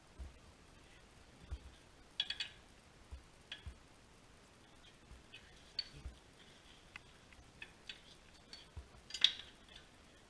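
Scattered metallic clinks and light knocks of hand tools, bolts and suspension parts being handled while a control arm is fitted. There is a cluster of clinks about two seconds in, and the loudest single ringing clink comes near the end.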